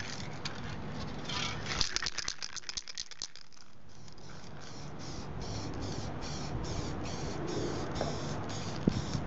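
Aerosol spray paint can shaken, its mixing ball rattling in a fast run of clicks for about a second and a half, then sprayed in short hissing bursts, about two a second, misting paint onto paper.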